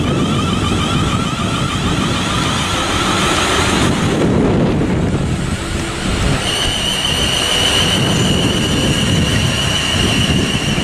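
South Western Railway Class 450 Desiro electric trains passing through at speed: a heavy rumble of wheels on the track, mixed with high whining tones from the traction equipment. The first train's whine fades about four seconds in. A second train follows, and a new steady high whine sets in at about six seconds.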